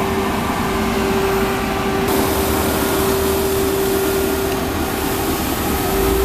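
Vacuum street sweeper truck running, a steady drone with a constant hum over hiss; the hiss gets brighter about two seconds in.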